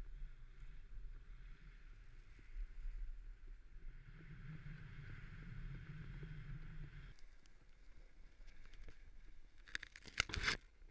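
Snowboard sliding over snow: a steady hiss with a low wind rumble, louder for a few seconds in the middle. Near the end comes a short burst of loud crackling scrapes.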